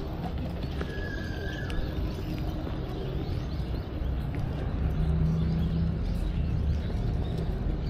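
Outdoor street ambience heard while walking: a steady low rumble with faint footsteps, and a short high tone about a second in.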